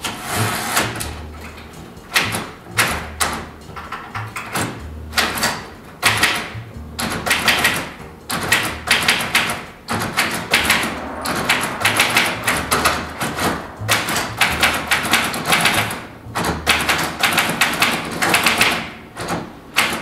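Smith-Corona Super G portable typewriter being typed on: rapid clacking key strikes in bursts, with short pauses between.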